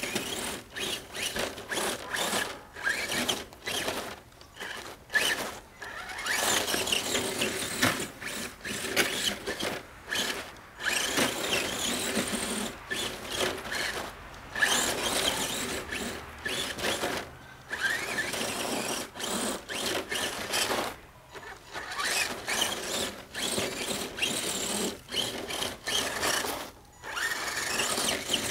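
Electric motor and geared drivetrain of a 1:10 scale Carisma SCA-1E RC trail truck whining as it drives over snow. The throttle goes on and off, giving stretches of running one to a few seconds long with short pauses between.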